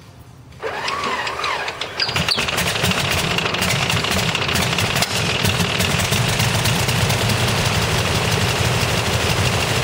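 Cessna 195's Jacobs seven-cylinder radial engine being started on its first start after 26 years in storage: it cranks over from about half a second in, catches about two seconds in, and then runs steadily with rapid, sharp firing pulses.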